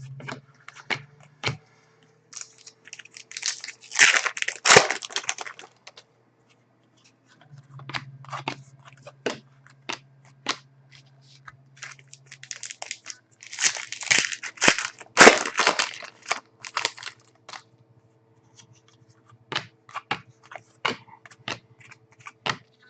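Trading-card pack wrappers crinkling and tearing open in two bursts, about four seconds in and again about fourteen seconds in, with scattered sharp clicks of cards being handled between them.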